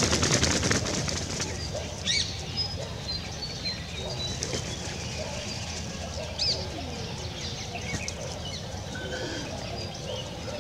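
A quick burst of wing-flapping and feather rustle for about the first second and a half, then scattered sharp bird chirps and the low cooing of pigeons feeding.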